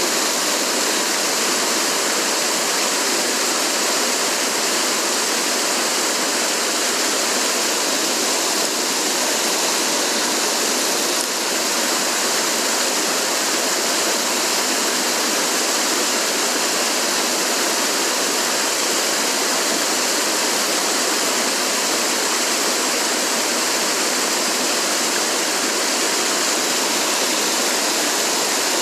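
Mountain stream rushing over rocks: a loud, steady roar of running water with no change throughout.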